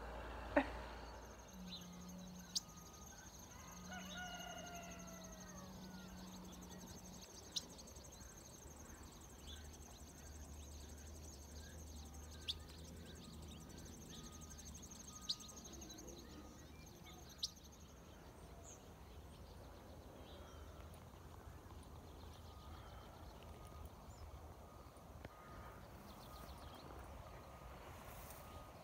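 A rooster crows once, faintly, about four seconds in, over a quiet background with a few sharp clicks.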